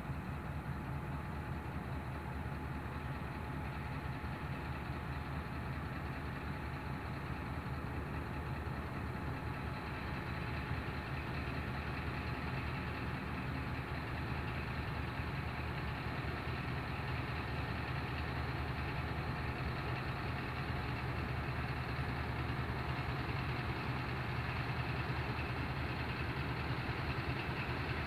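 Diesel engine of a ZCU-20 diesel-electric locomotive running with a steady low throb as it pulls slowly away, growing a little louder toward the end.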